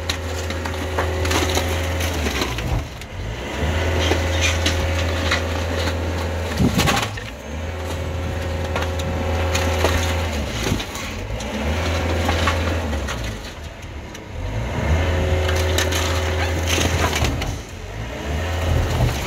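Spiked steel drum compactor on a hydraulic arm crushing waste in a skip: wood and cardboard cracking and splintering under the drum. Under the crackle runs the machine's low drone with a steady whine, which comes in stretches of a few seconds with short dips between them.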